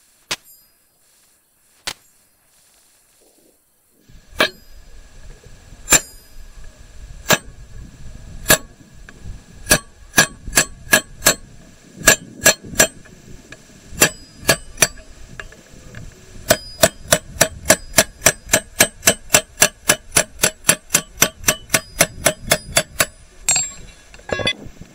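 Hammer tapping a steel chisel against an iron pharsa (axe) head, each blow a sharp metallic clink with a ringing note. A few single taps at first, then steady strikes about once a second, speeding up to a fast run of about three a second in the second half.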